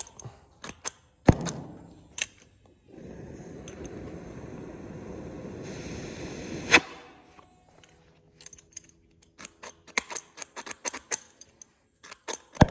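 Flint striker snapped again and again at a cutting torch without lighting it, the worn flint giving weak sparks. In the middle, gas hisses steadily from the torch tip for about four seconds and stops at a loud snap, followed by a quick run of lighter clicks.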